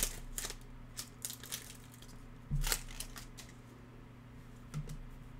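Foil trading-card pack wrapper crinkling as the cards are slid out and handled: a few soft crinkles and clicks, with a knock about two and a half seconds in.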